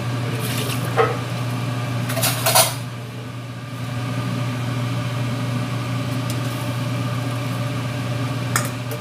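Metal pots and a ladle clattering on a kitchen stove, with short knocks about a second in, a louder cluster around two to two and a half seconds, and another near the end, over a steady low hum.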